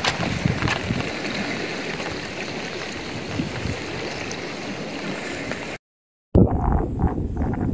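Floodwater rushing fast past a road embankment: a steady, even rush of water. It drops out completely for about half a second near the end, where the footage cuts, and a rougher, louder noise follows.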